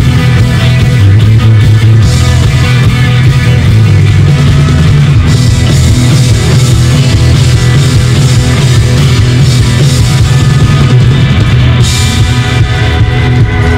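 Live band playing loud, driving rock-folk music: cello, electric guitars and a drum kit, with a hand-beaten frame drum.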